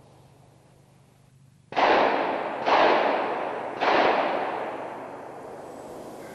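Three gunshots from hunters' guns, about a second apart, starting roughly two seconds in. Each has a long echoing tail that fades slowly.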